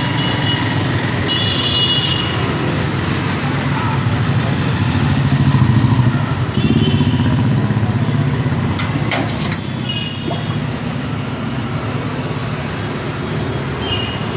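Road traffic with vehicle engines running steadily, and a brief clatter about nine seconds in.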